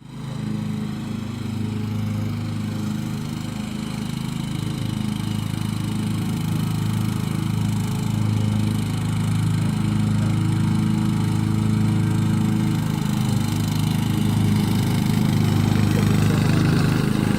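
Riding lawn mower engine running steadily, growing slightly louder toward the end.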